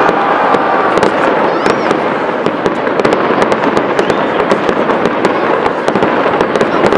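Fireworks display: many sharp crackling pops in quick succession over a constant dense rush of noise.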